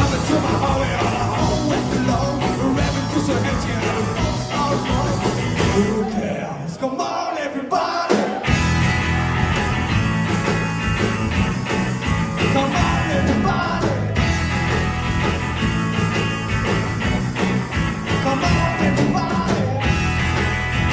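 Rock and roll band playing with a lead singer. A little over six seconds in, the bass and drums drop out for about two seconds in a break, then the full band comes back in.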